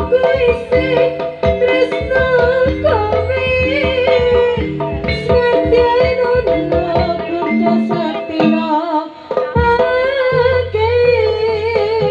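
Live Javanese kuda lumping (jaranan) ensemble music: steady drum strokes under a wavering melody line, with low held tones that come and go.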